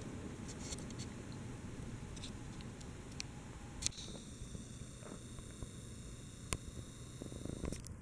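Seagull Lighting Main Street ceiling fan running: a steady low motor hum and air rush, with a few faint clicks.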